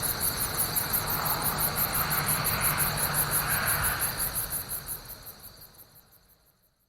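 Crickets chirping in a rapid, even pulsing over a steady high trill, fading out over the last couple of seconds.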